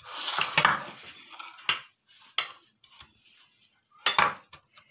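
A metal spoon scraping and clinking against a bowl while stirring glaze: a scrape at the start, a couple of sharp clinks, and another scrape with a clink about four seconds in.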